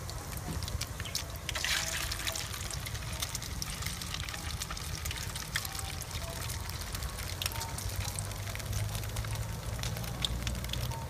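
Hot oil sizzling around ground-fish patties frying in a pot, a steady hiss dotted with many small pops and crackles, over a low steady rumble.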